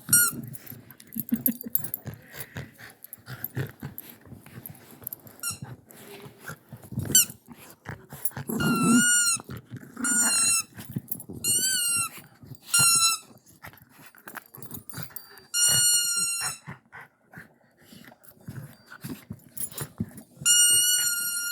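A dog chewing a squeaky toy: a series of high squeaks, short ones from about seven seconds in and longer held squeaks near the end, with soft clicks in between.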